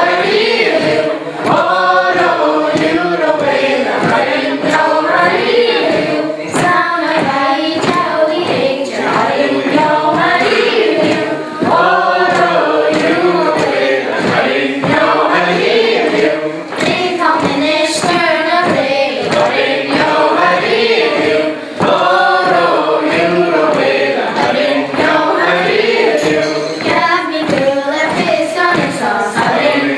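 A group of voices, mostly women's, singing a Scottish Gaelic milling (waulking) song together around a table of cloth, with regular thumps of the cloth being pounded on the table under the singing.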